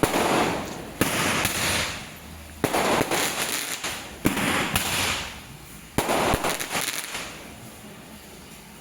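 Roman candle firing shot after shot: five sharp pops about one to two seconds apart, each followed by about a second of hiss as the charge flies out, dying away near the end.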